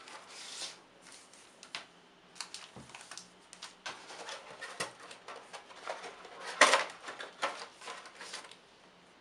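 Unboxing handling noise: the plastic-wrapped GoClever TAB A73 tablet and its cardboard box and insert being lifted and moved, with irregular crinkling, rustling and small knocks, loudest about two-thirds of the way through.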